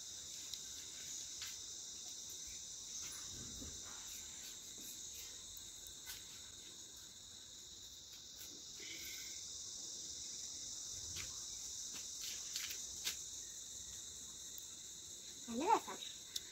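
Steady, high-pitched chorus of insects, with a brief child's voice near the end.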